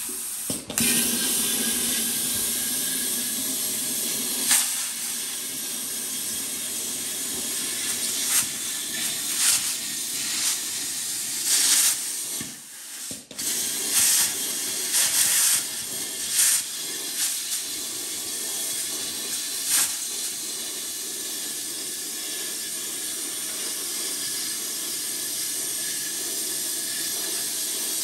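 Pneumatic cut-off tool cutting through the sheet steel of an old air cleaner housing: a steady high air hiss and whine with the wheel grinding the metal, flaring louder now and then as it bites. It stops briefly about twelve seconds in, then starts cutting again.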